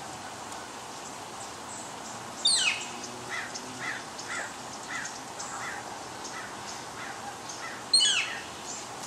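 Birds calling in a tree: two loud calls that sweep steeply down in pitch, one about two and a half seconds in and one near the end, with a run of short notes about two a second between them.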